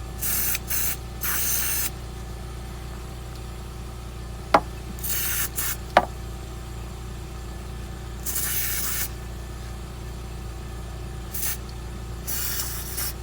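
Aerosol can of silicone lubricant sprayed in about seven short hissing bursts onto the Lada Vesta's rubber rear-strut bump stops, to stop the squeak of rubber rubbing on metal. Two sharp clicks come between the sprays, and a steady low hum runs underneath.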